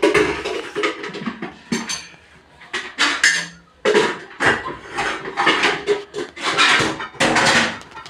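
Kitchenware being handled: dishes, pots and utensils clattering and scraping in a string of irregular bursts.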